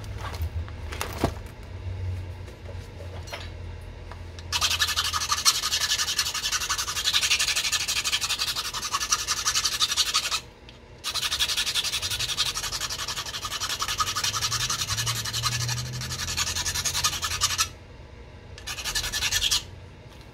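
Edge of a knapped stone point being ground with an abrader: a rapid, loud rasping scrape in three spells, a long one starting about four seconds in, a second after a short pause, and a brief one near the end. A couple of faint clicks come before the scraping.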